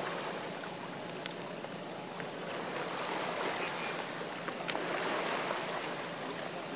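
Steady rushing, splashing water with small ticks and drips, swelling a little about halfway through.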